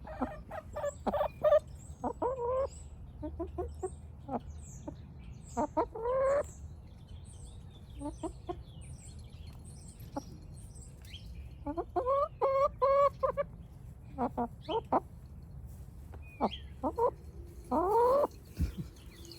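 Wyandotte hens clucking up close, with short calls scattered throughout. There is a quick run of repeated clucks about twelve seconds in, and a rising call near the end.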